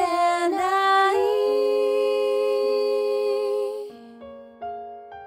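Female voices singing in two-part harmony, closing on one long held note; about four seconds in the voices stop and a few soft piano notes ring out.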